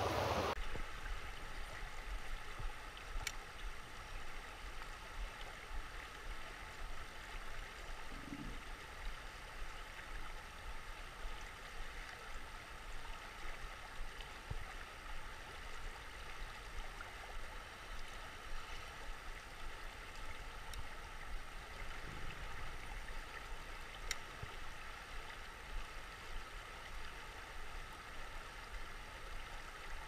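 Brief camera-handling noise at the start, then the steady rush of a shallow river running over a riffle, with a low, unsteady rumble underneath and a few faint clicks.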